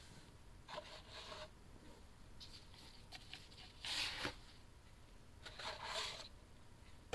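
Rustling and light handling noises as gloved hands move cloth pouches and packaging, in four short bursts with a few light ticks, the loudest about four seconds in.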